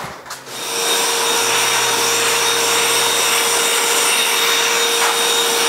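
Shop vacuum switched on about half a second in and running steadily with a high motor whine as it cleans dust off an oak tabletop.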